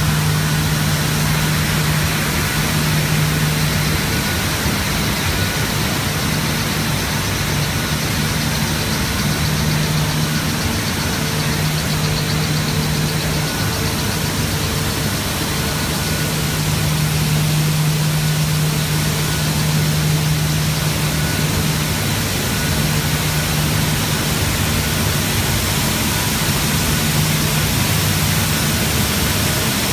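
Paper machine running at production speed (80 gsm paper at 810 m/min): a loud, steady rushing noise with a strong low hum that swells and fades every few seconds, and faint steady tones above it.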